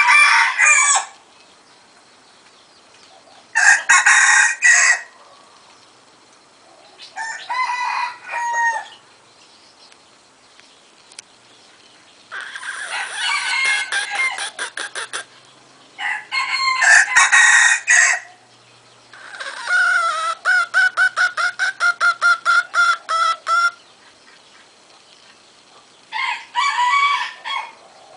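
Rooster crowing repeatedly, about seven loud calls with quiet gaps between them. Two of the longer calls break into a fast, even stutter of about five pulses a second.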